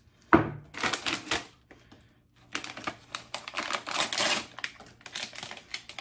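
Small candies clattering into a nearly full candy jar: three spells of rapid rattling clicks with short pauses between them.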